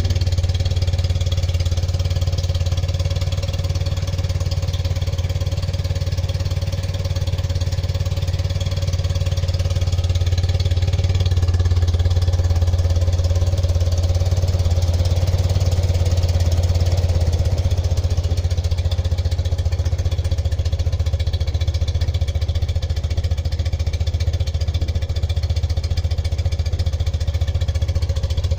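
Restored BMW R75/6's 745 cc air-cooled flat-twin boxer engine idling steadily and smoothly, a little louder for a few seconds midway.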